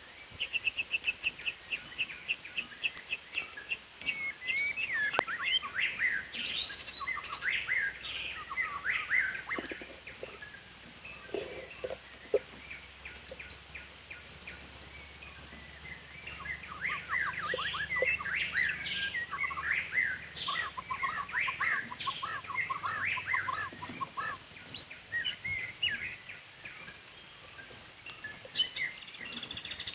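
White-rumped shama singing a long, varied song: a quick run of repeated notes at the start, then clear whistles and chattering phrases, over a steady high hiss.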